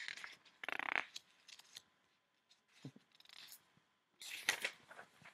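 Paper pages of a picture book rustling and being turned, in two short bursts of crinkling and soft clicks, about a second in and again near the end.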